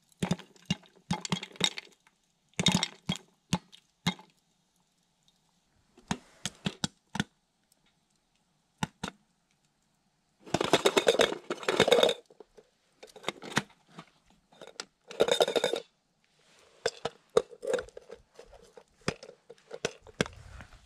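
Popcorn kernels popping inside a lidded metal camp pot: scattered sharp pops. A lull comes about a third of the way in, and more pops follow in the second half. Around the middle, and again a few seconds later, the pot is shaken on the stove, a brief rattling scrape of metal and kernels.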